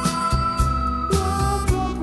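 Background music: a held lead melody line, harmonica-like, over bass and a steady drum beat.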